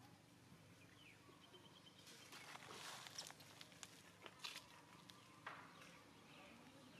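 Faint rustling and scuffing in dry leaf litter, with a few soft clicks, as a baby monkey moves its hands and feet on the ground. A short faint chirp sounds about a second in.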